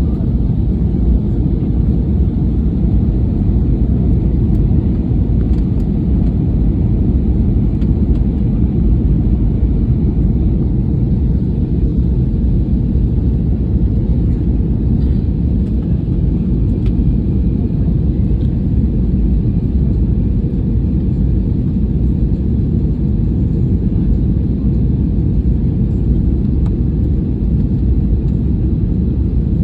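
Jet airliner cabin noise in flight: a steady low rumble of engines and airflow heard inside the cabin from a window seat over the wing, holding an even level throughout.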